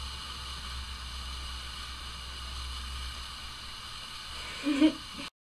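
Steady hiss of recording noise over a low hum, then a brief voiced sound, a short hum or syllable, near the end; the sound then cuts off abruptly.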